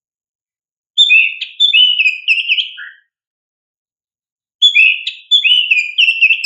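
Oriental magpie-robin (kacer) singing: two loud phrases of quick, down-slurred whistled notes, the first about a second in and the second starting about four and a half seconds in, with dead silence between them.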